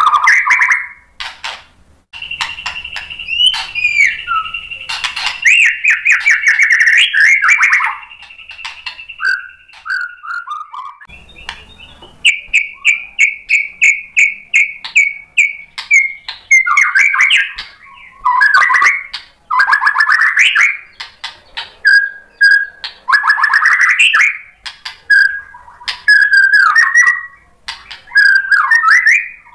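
White-rumped shama singing a loud, varied song of whistles, trills and rapid repeated notes. A long, steady high note runs for several seconds near the start, with other phrases over it.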